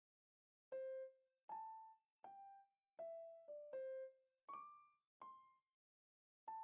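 Background piano music: a slow, sparse melody of single notes, each struck and fading out, with short silences between them.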